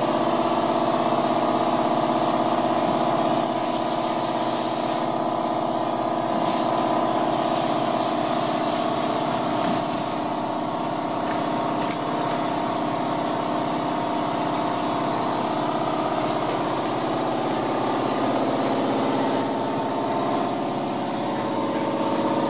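Steady machine drone: several constant tones with a hiss over them, running unchanged.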